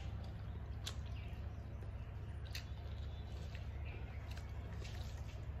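A hand squishing and mixing rice with curry on a steel plate, with a few sharp clicks against the metal, over a steady low hum.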